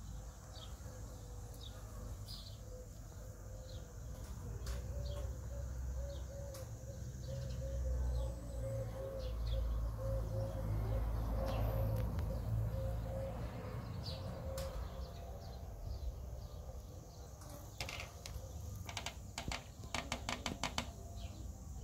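Small birds chirping again and again in short high notes. A low rumble swells in the middle, and a quick run of sharp clicks comes near the end.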